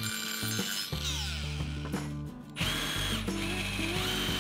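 Cordless angle grinder grinding the steel mounting clips off a metal tool-hanging bracket, winding down about two seconds in. Then a Milwaukee M18 cordless drill starts drilling through the bracket into wood, its motor whining. Background music plays underneath.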